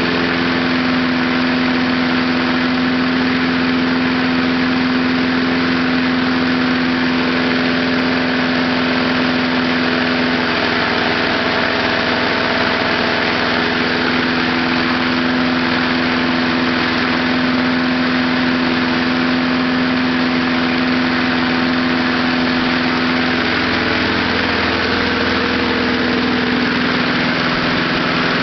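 Small lawnmower engine running steadily on gasoline vapor drawn through a wick from a fuel box, its speed shifting slightly a couple of times.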